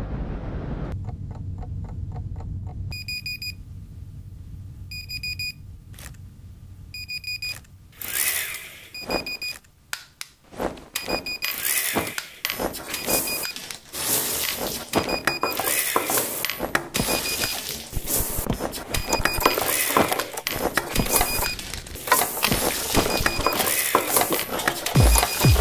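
Electronic alarm clock beeping: a short high beep about every two seconds over a low steady hum. From about eight seconds in, rustling, knocks and clatter come in over it while the beeping goes on.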